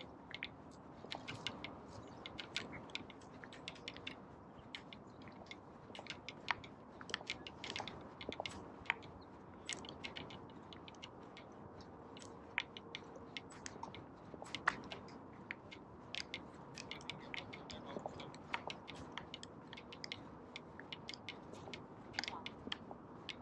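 Footsteps crunching on dry sand, heard as many irregular light clicks and crackles over a faint steady background.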